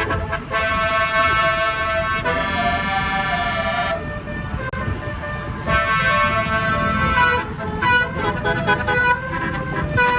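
A Bumen Jaya bus's telolet basuri musical horn playing a tune of held notes that step in pitch. It breaks off about four seconds in, then starts again and plays shorter, quicker notes towards the end.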